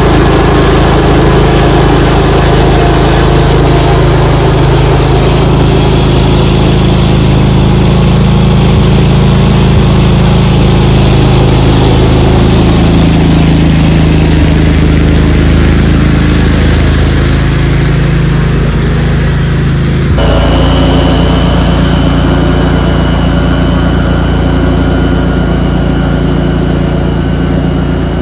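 Kohler engine of a Cub Cadet 106 garden tractor running steadily. About twenty seconds in the sound changes abruptly and a steady high whine comes in.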